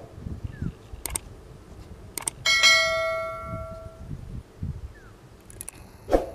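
Subscribe-button animation sound effect: two clicks, then a bell chime about two and a half seconds in that rings out for over a second. Another sharp hit comes near the end, over a faint low rumble.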